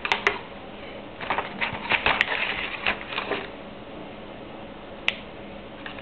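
Small hard clicks and rattling, as of small objects being handled on a desk: three quick clicks, a busy rattle of clicks about a second in, then a single click near the end.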